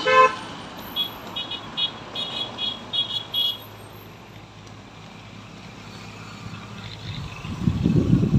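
Roadside traffic with a short vehicle horn honk at the start. A quick series of short high chirps follows over the next few seconds, and a gusty low rumble builds near the end.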